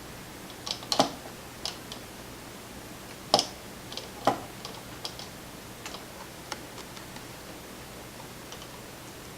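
Scattered light clicks and taps of small metal lock parts being handled on a work surface, with three louder taps about one, three and four seconds in.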